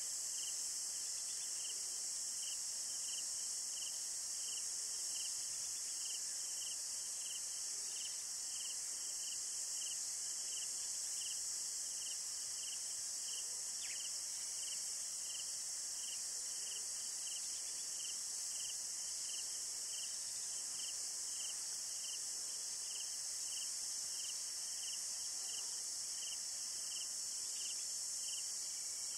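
Insects calling in the bush: a steady high-pitched buzzing chorus with a regular chirp about twice a second running through it.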